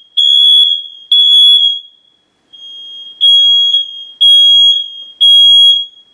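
Household smoke alarm sounding during a test: loud, high-pitched beeps of about half a second each, roughly one a second, which stop shortly before the end.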